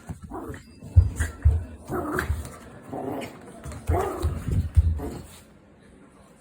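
A Yorkshire terrier giving a string of short barks and whines, several calls a second, for about five seconds before stopping.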